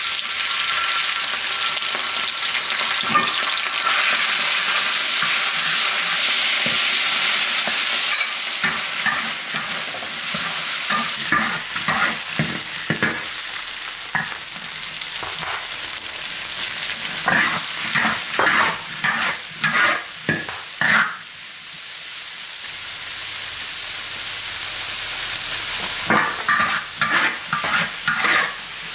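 Food stir-frying in a large iron wok: hot oil hisses loudly for the first several seconds, then the hiss settles lower as a spatula scrapes and tosses the food around the wok in repeated strokes, about two a second in the middle and again near the end.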